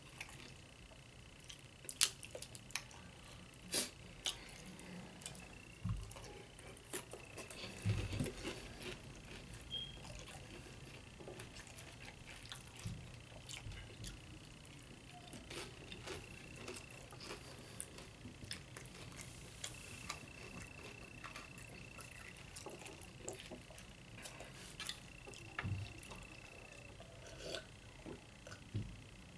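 Close-up eating sounds of Doritos nachos: chips crackling as they are picked from the pile and crunched, with wet chewing, scattered crisp clicks and a few soft low thumps. A sip from a cup near the end.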